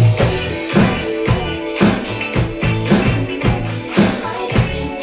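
Electronic drum kit played in time with a pop backing track: a steady beat of about two hits a second over a bass line and melody.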